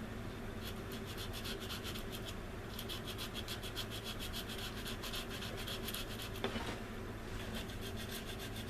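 Light hand sanding of a glued seam on a plastic model kit's wing, filled with CA glue to be sanded flush: quick back-and-forth rubbing strokes, about five or six a second, in short runs with brief pauses.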